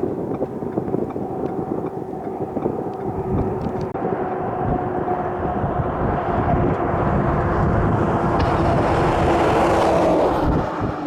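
A vehicle driving: a steady engine and road drone with a rushing noise that builds over several seconds and eases off near the end.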